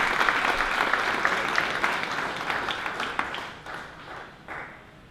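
Audience applauding: a dense patter of many hands clapping that thins out and dies away about four seconds in.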